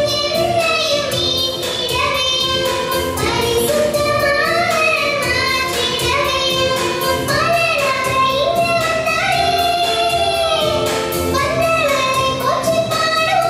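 A song with a group of voices singing a melody in long held notes over instrumental backing.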